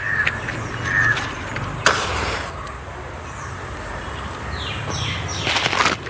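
Newspaper crinkling in the hands, then a match struck and the paper catching fire with crackling near the end.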